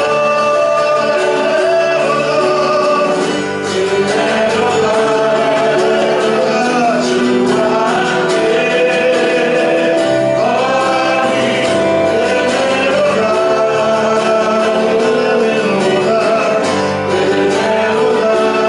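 Church praise team singing a gospel worship song with instrumental accompaniment, voices holding and gliding between long notes.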